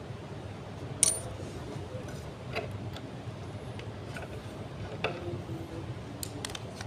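A few light metallic clinks and taps as steel bolts are handled and fitted into a wooden chair frame; the first, about a second in, is the loudest, with a brief ring. A steady low background hum runs underneath.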